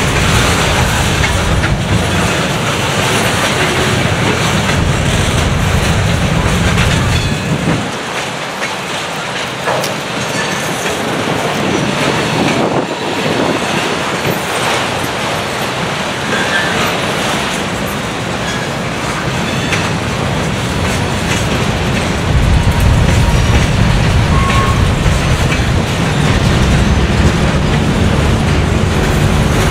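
Freight cars of a slow manifest train rolling past close by, steel wheels clicking over the rail joints above a steady rumble. The low rumble eases about eight seconds in and comes back louder after about twenty-two seconds.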